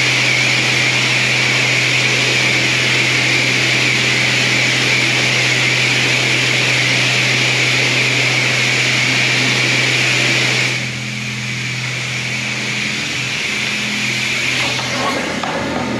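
A machine running steadily with a low hum under a loud hiss; about eleven seconds in the hiss falls away and the hum carries on.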